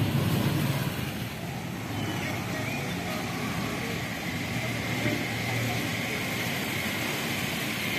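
Street ambience: a steady rumble and hiss of passing road traffic.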